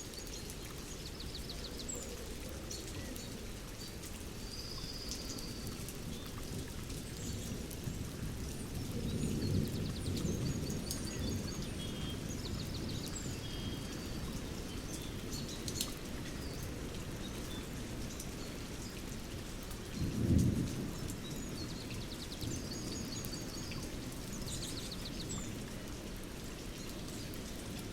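Ambient nature-and-fireplace soundscape: a steady rain-like hiss with scattered fire crackles, while distant thunder rumbles, swelling about a third of the way in, with a shorter, louder rumble about two-thirds in. Birds chirp in short bursts near the start, in the middle and near the end.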